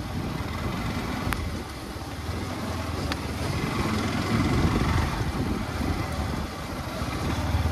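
Motorcycle engine running steadily on the move, with wind noise on the microphone.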